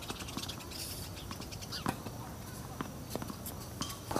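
Tennis balls being struck with racquets and bouncing on a hard court during a doubles rally: a scatter of sharp pops, the loudest about two seconds in, with several more in the last two seconds.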